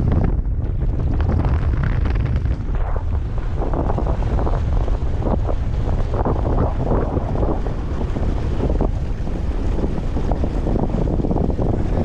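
Wind buffeting the microphone in a heavy, uneven rumble, with water rushing and splashing along the hull of a small sailing catamaran under way.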